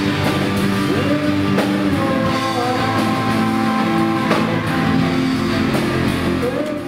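Background rock music with guitar and drums, fading out at the very end.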